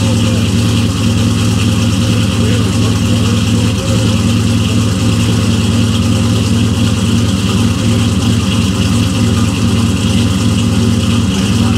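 Turbocharged LS V8 of a Chevy SS truck idling steadily through its freshly fabricated stainless single-into-dual exhaust, warming up after a cold start.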